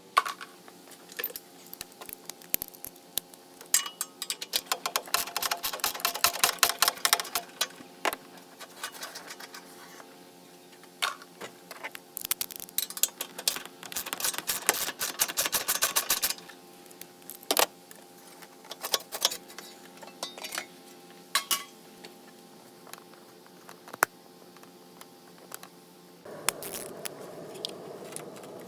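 Ratchet wrench clicking in two long runs of rapid clicks, with scattered clinks of metal hand tools in between, during work on a car's starter.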